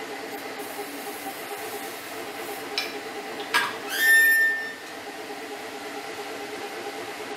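Spring-balanced magnifier lamp arm squeaking as it is swung, one short high squeal about halfway through, preceded by a couple of light clicks, over a steady low hum.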